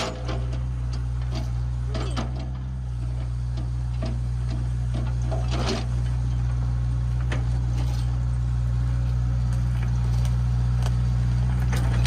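Kubota mini excavator's diesel engine running steadily, with scattered clanks and knocks from the arm, bucket and thumb working.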